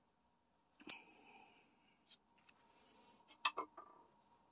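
Faint handling sounds of crocheting by hand: short rustles of thread and a few sharp little clicks from the crochet hook and beaded work, the loudest a pair of clicks about three and a half seconds in. A faint steady tone runs underneath.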